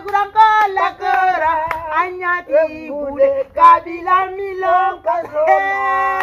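A woman singing unaccompanied in a high voice, in long, bending phrases, ending on a long held note near the end.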